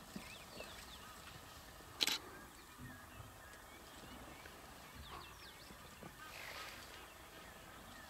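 Faint bush ambience with scattered short chirping calls, with a single sharp click about two seconds in.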